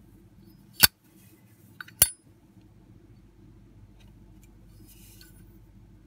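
Zippo lighter's hinged metal lid snapped shut and flipped open again: two sharp metallic clicks about a second apart, with a faint handling rustle near the end.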